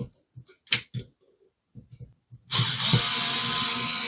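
A few light plastic clicks and knocks, then, about two and a half seconds in, a cordless drill-driver starts up and runs at a steady whir, fixing the belt clip in place.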